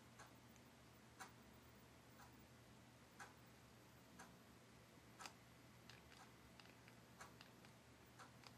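Faint, regular ticking about once a second, with fainter clicks in between, over a steady low hum.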